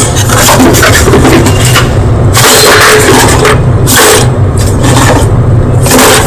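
White school chalk crunching right at the microphone in a run of irregular, crackly crunches, over a steady low hum.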